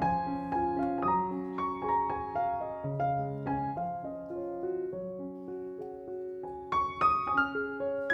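Background piano music: a slow melody of single notes over lower notes that ring on.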